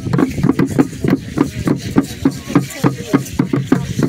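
Ceremonial drum beaten with sticks in a steady, even rhythm of about four beats a second.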